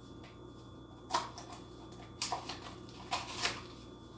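Packaged toy cars being handled: a few short rustles and clicks of plastic and cardboard packaging, about a second apart, over a low steady room hum.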